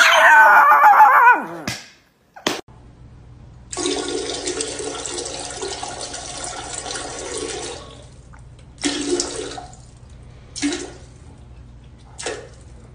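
A chihuahua howling with a wavering pitch that slides down and stops after about a second and a half. After a short gap comes a toilet flushing, a steady rushing of water lasting about four seconds, then three shorter bursts of rushing noise.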